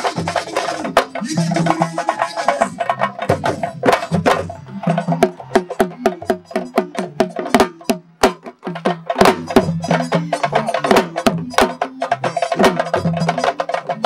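Senegalese sabar drums played fast: many sharp, cracking stick-and-hand strokes over lower drum tones in a dense rhythm, thinning out briefly about halfway through.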